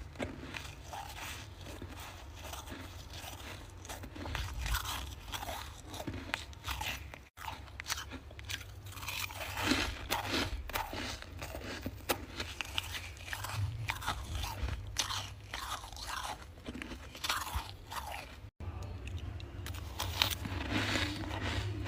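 Freezer frost being bitten and chewed close to the microphone: dense, irregular crunching, over a steady low hum.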